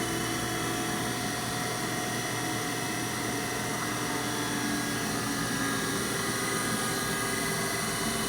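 Haas VF-4 vertical machining centre running: a steady mechanical hum with several whining tones, a further tone joining about halfway through.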